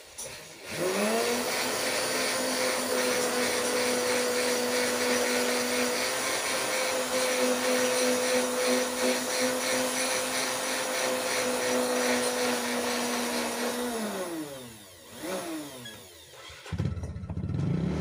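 Sewing-machine motor driving a homemade flexible-shaft rotary tool: it spins up about a second in and runs at a steady speed with a constant whine. Near the end it winds down, briefly speeds up again and winds down once more. In the last second or so a different low rumbling noise sets in.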